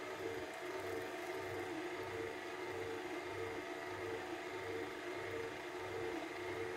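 KitchenAid stand mixer running steadily, its wire whisk beating batter in a steel bowl, with a motor hum that throbs about twice a second.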